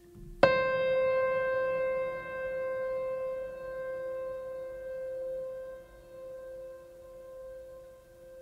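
Background music: a single long held note that comes in sharply about half a second in over a fainter steady tone, swelling and dipping in loudness as it sustains.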